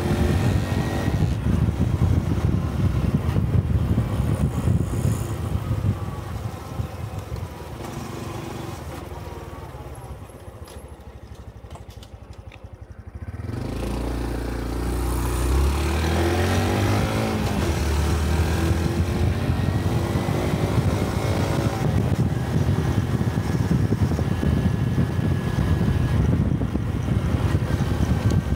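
Engine of a 125 cc Honda Cub motorcycle on the move, with wind noise. About a third of the way in it slows and goes quiet for a few seconds, then pulls away again with the revs rising and settles back into steady running.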